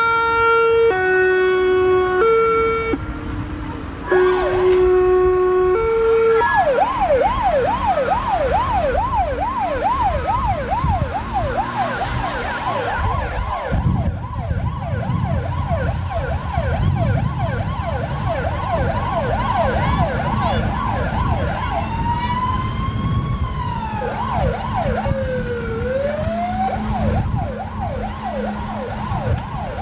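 Fire engine warning devices: a two-tone horn alternating between two notes for the first six seconds, then an electronic siren on a fast yelp, which changes after about twenty seconds to slower rising and falling wails. A diesel engine runs underneath from about halfway in.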